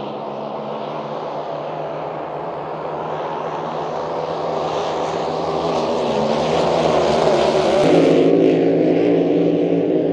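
GP35-class racing hydroplanes running flat out in a pack, a steady, loud engine drone that grows louder and is loudest about eight seconds in, where the sound changes abruptly as a boat sweeps past.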